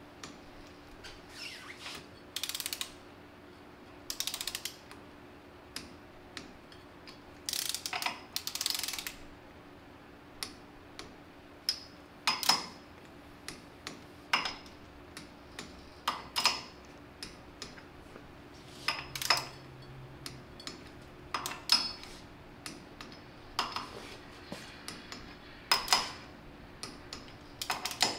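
Torque wrench with a 9/16 socket ratcheting bolts down on a pressure reducing regulator's spring chamber, set to 22 foot-pounds. Short bursts of ratchet clicking come first, then a run of single sharp clicks about every two seconds.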